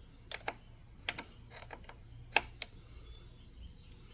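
Metal clicks of a 10 mm wrench tightening the nut on a car battery's negative terminal clamp: about eight irregular clicks, the loudest about two and a half seconds in.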